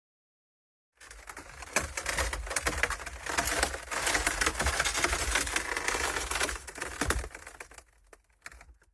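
A friction sound effect: dense, rapid crackling clicks of something rubbing or grinding under strain. It starts about a second in, is loudest in the middle, and thins out and stops near the end.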